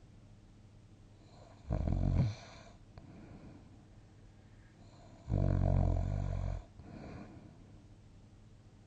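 A sleeping person snoring: a short snore about two seconds in and a longer one past the middle, with quieter sleep breathing between.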